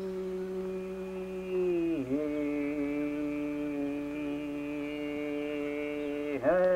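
A voice chanting in long, steady held notes, the pitch dipping briefly about two seconds in and again near the end.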